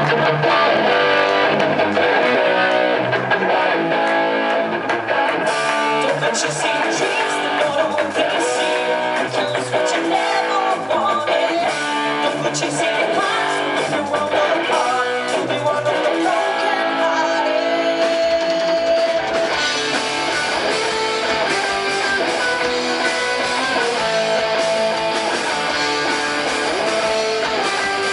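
A band playing a guitar-led song live. The deep bass drops out for a stretch and comes back in after about eighteen seconds.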